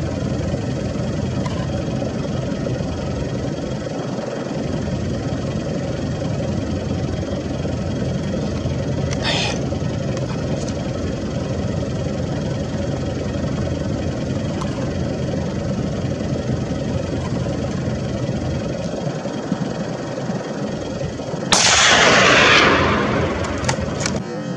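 A steady low rumbling noise, then near the end a single loud gunshot that fades out over about a second and a half.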